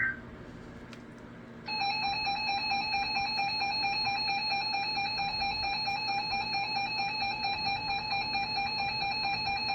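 Electronic emergency-alert attention tone: several high pitches sounding together and pulsing quickly and evenly. It starts just under two seconds in and carries on steadily, announcing the next tornado warning broadcast.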